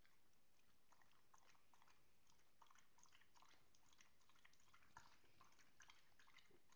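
A galgo (Spanish greyhound) eating from a small hand-held bowl: faint, irregular clicks of chewing and mouthing the food.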